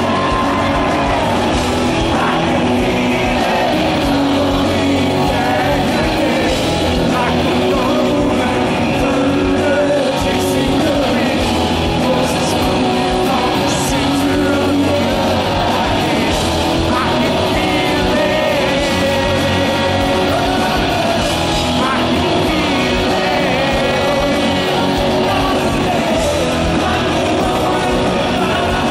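Rock band playing live: a male lead singer singing over electric guitars and drums, loud and continuous.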